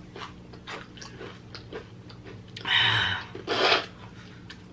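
A person chewing a mouthful of crunchy hot chips close to the microphone: a run of small crisp crunches. About two and a half seconds in come two loud breathy rushes of air.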